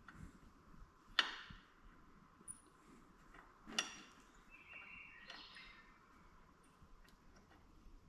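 Metal hand tools clinking against the primary clutch while a clutch-weight bolt is worked loose with an Allen wrench and socket: two sharp clinks about a second and almost four seconds in, with fainter ticks and a short squeak about five seconds in.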